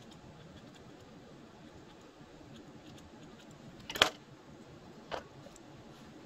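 Quiet handling of a paracord lanyard close to the microphone, with faint ticks, one sharp click about four seconds in and a fainter click about a second later.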